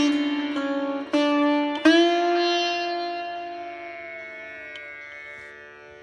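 Background music on a plucked string instrument: a few notes plucked in the first two seconds over a held drone, then one long note ringing and slowly fading away.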